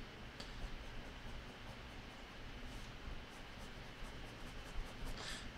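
Faint scratching of a pen on paper in short, irregular hatching strokes.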